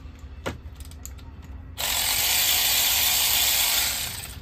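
A socket ratchet spun fast: a dense run of clicks that starts suddenly about two seconds in and lasts about two seconds, on a spark plug socket. A single knock comes shortly before it.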